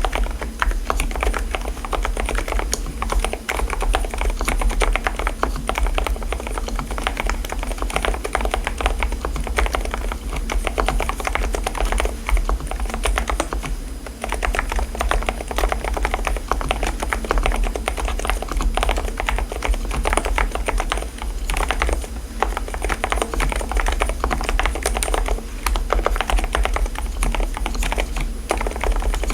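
Continuous fast typing on an Mstone mechanical keyboard fitted with silent (low-noise) switches, a dense run of soft keystroke clicks with a steady low hum underneath.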